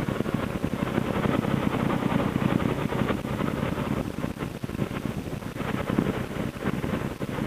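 Triumph America motorcycle's parallel-twin engine running at road speed, heard from the rider's seat as a steady rumble mixed with wind noise on the microphone.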